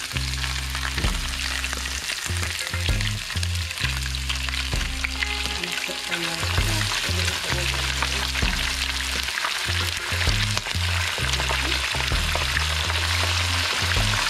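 Seasoned snapper frying in hot coconut oil in a pan: a steady, dense crackling sizzle.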